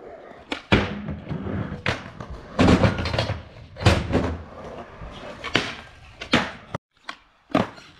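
Skateboard wheels rolling on concrete, broken by several sharp clacks and slams as the boards pop, land and hit a low box and a metal flat rail.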